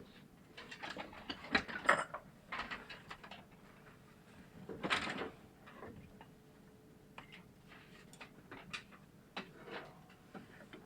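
Irregular clicks, taps and rustling as wires and a car radio head unit are handled on a test bench, the loudest a cluster about two seconds in and another about five seconds in, over a faint steady hum.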